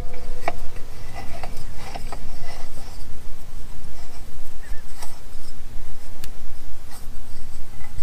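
A metal outdoor electrical box being turned by hand onto a threaded half-inch fitting on a pump: scattered light clicks and scraping of metal on metal, over a steady low rumble.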